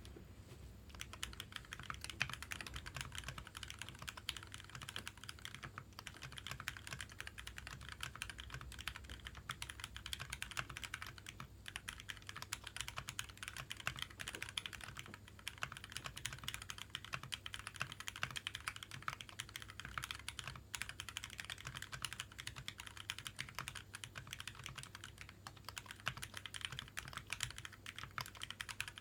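Fast, continuous typing on a custom mechanical keyboard with Greetech Black linear switches lubed with Tribosys 3204, on a brass plate in a dynamat-dampened case. Keystrokes start about a second in and run as a steady stream with a few brief pauses.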